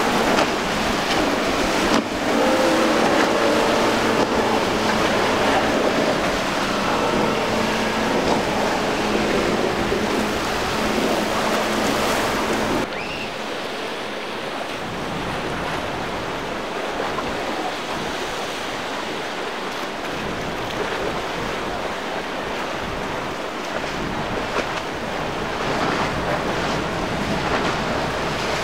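Single Yamaha 200 hp outboard running at speed on a Robalo center console as it crosses choppy water, over the rush of spray, waves and wind. About halfway through the sound cuts abruptly and becomes a little quieter, mostly water and wind noise from a second center console running through the chop.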